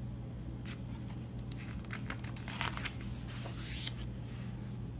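A picture book's paper pages being turned: a run of paper swishes and crackles from about a second in to about four seconds in, over a steady low hum.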